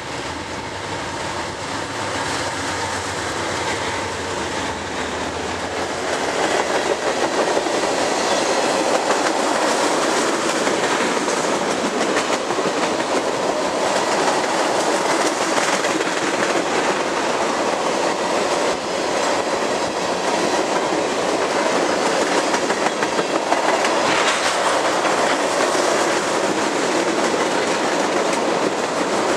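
Freight train passing close by. The diesel locomotives' engines hum for the first several seconds, then from about six seconds in the tank cars roll past with a louder, steady clickety-clack of wheels on the rails.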